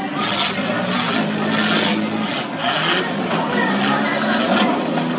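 Demolition derby cars' engines running and revving, pitch rising and falling, as the wrecked cars push against one another in a pile-up, with crowd voices mixed in.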